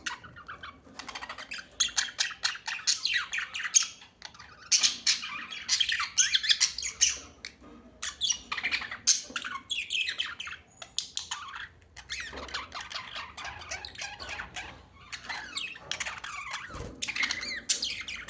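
Birds chattering in dense runs of rapid chirps and squawks, with short lulls about 4, 8 and 12 seconds in.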